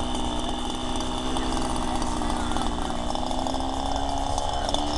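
Spec racer race car engine running steadily, its pitch rising slightly near the end.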